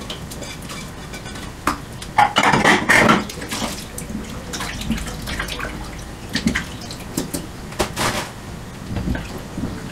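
Dishes being hand-washed in a stainless steel sink: water splashing and pots and dishes clinking, with a louder noisy stretch of splashing about two to three seconds in.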